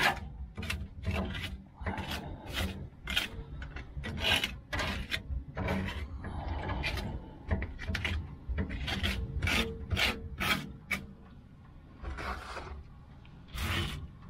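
Hand scraper scraping baked-on grease and ash off the steel floor of a smoker's cooking chamber in repeated short, irregular strokes, digging out a clogged grease drain.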